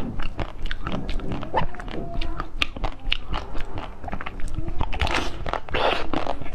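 Mouth-sounds eating a frozen dessert with a hard blue shell and orange filling: biting and chewing, a quick run of small crisp cracks and clicks, with a longer, denser wet sucking noise about five seconds in.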